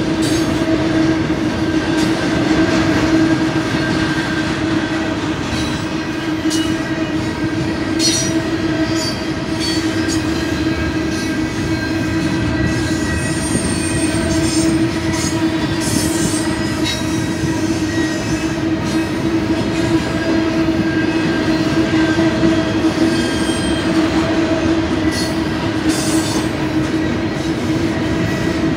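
Loaded double-stack intermodal well cars rolling past close by: a loud, steady rumble of steel wheels on rail with a continuous squealing tone from the wheels, and occasional sharp clanks.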